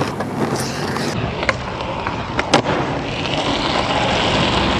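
Skateboard wheels rolling on concrete, with the board clacking against the ground: one sharp clack about a second and a half in, then two more in quick succession about a second later.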